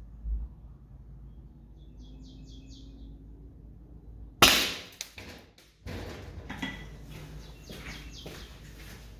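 A single sharp shot from an Umarex HDX .68 calibre gas-powered less-lethal gun, modded to about 52 joules, firing a ball into a rutabaga about four and a half seconds in. A few clicks and rattles of handling follow.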